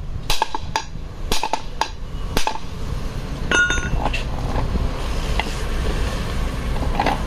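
Hammer striking the steel yoke of a drive shaft's universal joint to drive out the old cross: about six sharp metallic blows in the first two and a half seconds. A ringing metallic clink follows about a second later, then a steady low background hum with one more faint knock near the end.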